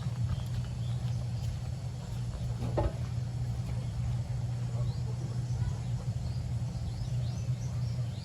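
Steady low hum, with faint bird chirps and a single dull thump about three seconds in.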